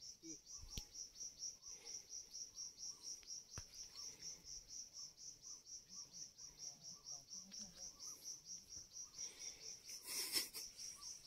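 An insect chirping steadily in a fast, even, high-pitched pulse of about four to five chirps a second, with a short burst of rustling noise near the end.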